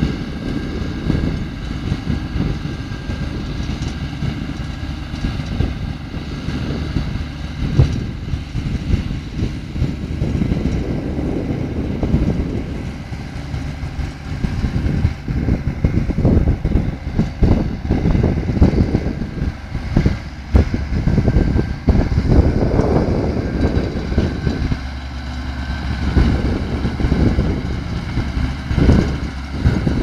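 Tractor engines and a towed potato harvester running steadily in the field, mixed with gusty wind buffeting the microphone.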